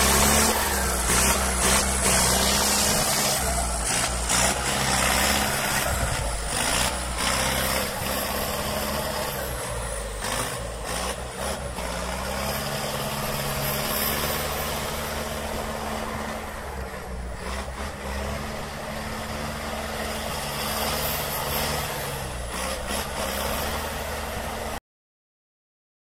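Turbocharged Zetor tractor diesel engine revving up and down under load, with a high turbo whistle rising and falling with each rev. The sound cuts off near the end.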